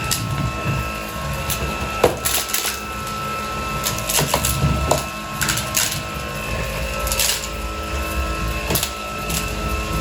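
Cordless stick vacuum running steadily with its motor whine, as small pebbles are sucked in with irregular sharp clicks and rattles.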